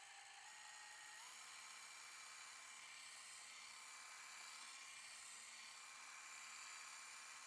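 Electric hand mixer's motor whining steadily and faintly as its twin beaters whip cream, its pitch stepping up a little about a second in.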